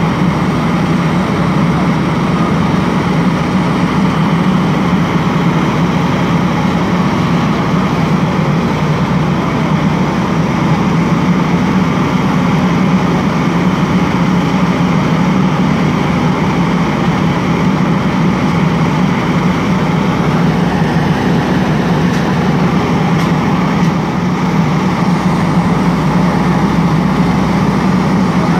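A fire engine's diesel engine running steadily: a constant, loud, low drone that does not change in pitch.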